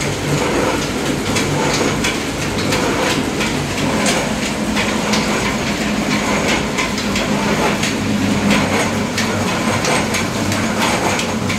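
Mustard-oil expeller (screw press) running steadily as it crushes mustard seed: a continuous mechanical hum with a fast, irregular clatter of small knocks.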